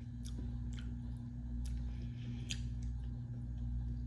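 Someone chewing a mouthful of ice cream with nut pieces in it, with a few small scattered clicks, over a steady low hum.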